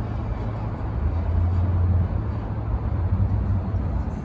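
Steady low rumble of city traffic, swelling slightly and easing again, with no distinct single event.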